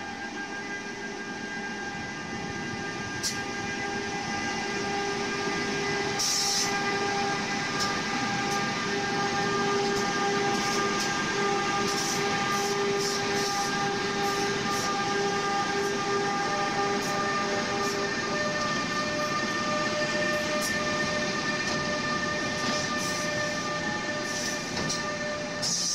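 Several coupled electric locomotives passing close by, with a steady electric whine over the rumble and clatter of wheels on the rails and occasional sharp clicks. The sound grows louder over the first several seconds. About two-thirds of the way through, the whine's pitch changes.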